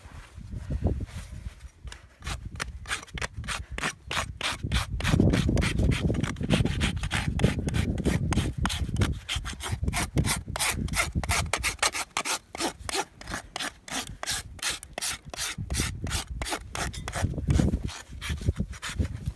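Farrier's hoof rasp filing a horse's hoof in a steady run of quick back-and-forth strokes, about three a second, as part of a hoof trim.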